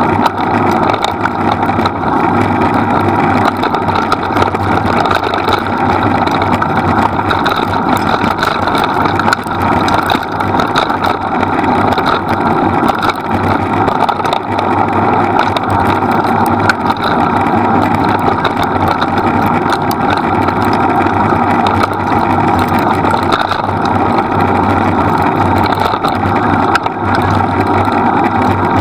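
Training rig pulled by two running sled dogs rolling fast over a leaf-covered dirt trail: a steady, loud rolling rumble with scattered small clicks.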